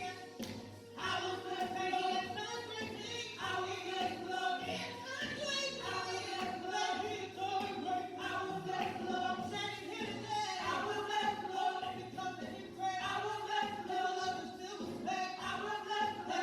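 Church choir singing a gospel praise song in sustained, harmonised lines.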